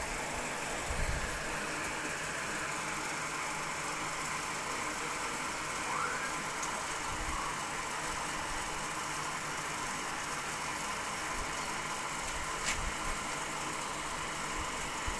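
Steady background noise: an even hiss with a low hum underneath and no clear events, apart from a faint click near the end.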